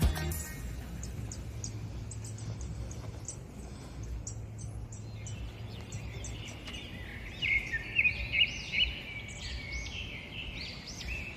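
Small birds singing: a run of thin, high, evenly spaced chirps, then louder, busier chirping and warbling from about seven seconds in, over a steady low outdoor hum.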